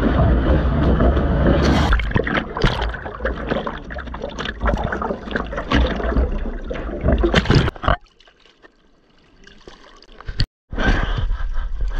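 Sea water rushing and splashing around a surfboard-mounted action camera as a surfer comes off a wave and moves in the water beside the board: a dense rush for the first two seconds, then irregular splashes and sloshing. The sound drops away sharply for about two seconds late on, then the splashing comes back.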